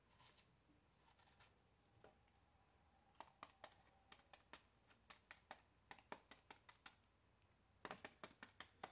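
Knife cutting chunks off a peeled apple held in the hand, the pieces dropping into a bowl of chopped apple: a run of faint, irregular clicks starting about three seconds in, with a quick cluster near the end.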